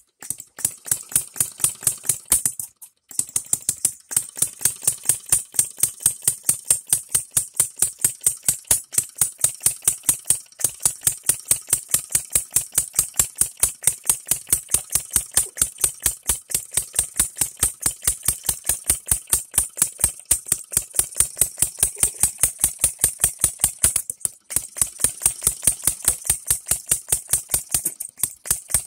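Non-compression 'three-stroke' model gasoline engine with 12 V buzz-coil ignition running on its own, firing in a steady rhythm of sharp pops about five times a second. Twice it misses briefly and picks up again, the sign of an engine that tries to die but catches itself.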